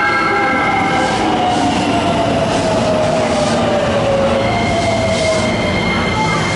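JR West suburban electric train pulling into the station with a steady rumble of wheels on rail, a few clicks over rail joints and a motor whine that falls in pitch as it slows. A thin high squeal sets in near the end as it brakes.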